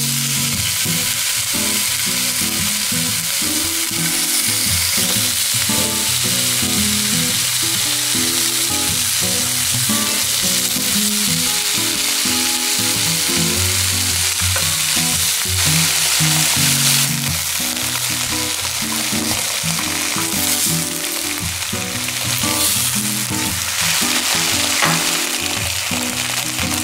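Sliced ham frying in butter in a frying pan, a steady sizzle that starts suddenly as the first slice goes in, with background music underneath.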